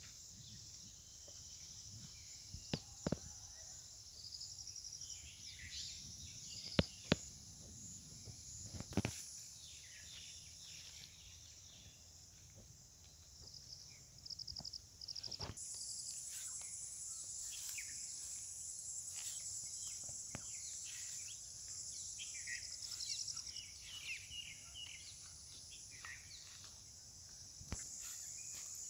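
Rural outdoor ambience: a steady, high-pitched insect chorus that grows louder just past halfway, with scattered bird chirps and a few sharp knocks in the first half.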